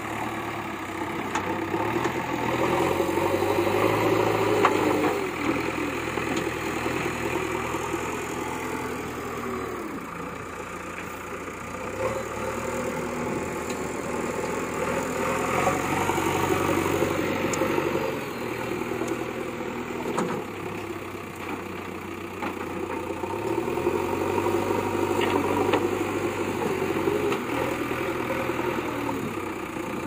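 JCB 3DX backhoe loader's diesel engine running under working load. It revs up and falls back several times as the loader bucket pushes and lifts soil.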